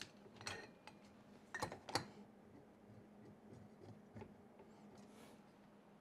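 A few light metallic clicks and knocks, the loudest pair about two seconds in, from hands working on a 3D printer's aluminum frame and gantry. After that only a faint low hum is heard.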